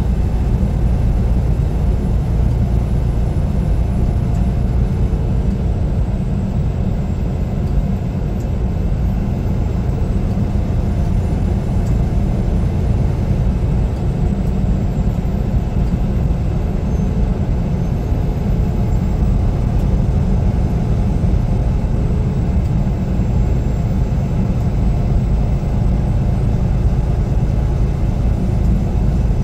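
Semi truck driving at a steady speed: a constant low engine and road rumble.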